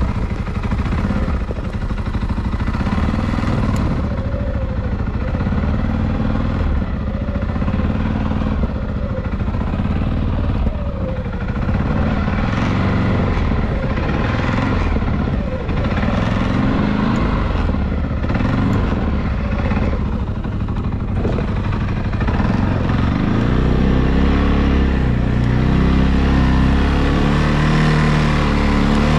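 ATV engine running while riding, its pitch rising and falling again and again as the throttle is worked. About three-quarters of the way through it settles into a steadier, deeper and slightly louder note.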